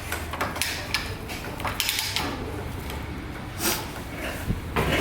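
Irregular clicks, knocks and scraping of hand tools and fittings being handled during plumbing work.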